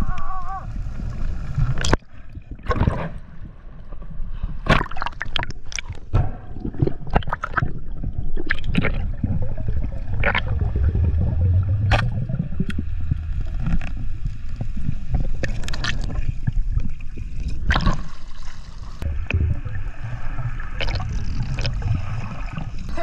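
Underwater sound picked up by a camera in its housing: a steady low rumble of moving water with bubbling and many irregular sharp clicks and knocks.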